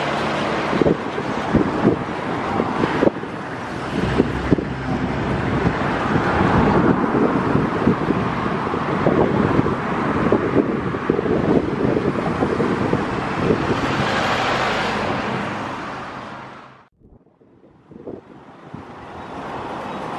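Jet engine noise from an Airbus A330-300 with Rolls-Royce Trent 700 engines flying away overhead, with wind gusting on the microphone. The noise fades out quickly about three quarters of the way through, and a quieter steady noise comes back near the end.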